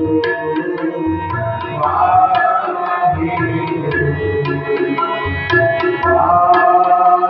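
Tabla played in a fast, continuous stream of crisp strokes with deep bass strokes, over a harmonium sustaining chords and melody.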